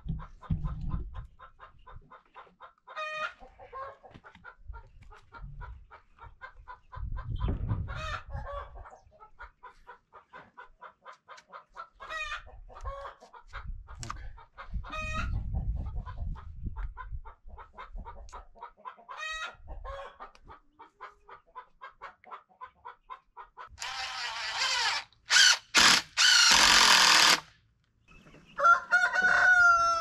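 Chickens clucking and chattering in a fast, continuous patter, with a louder call every few seconds. Near the end a loud burst of rushing noise cuts off abruptly.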